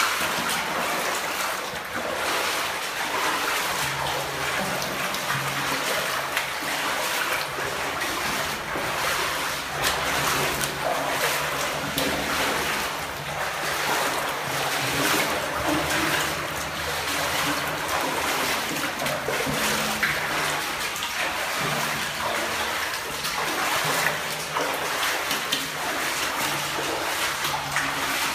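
Water splashing and trickling steadily, with scattered knocks.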